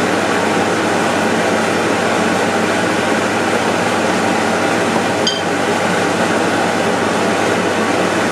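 Steady rushing noise of a running fan, even throughout, with one small click about five seconds in.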